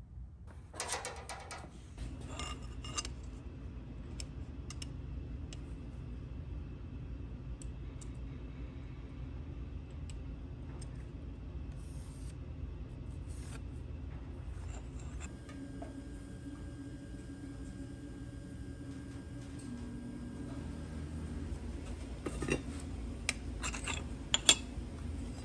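Small metal bracket stock and hand tools being handled at a bench vise: scattered light clinks and scrapes over a steady low hum, with a cluster of sharper metal clinks near the end.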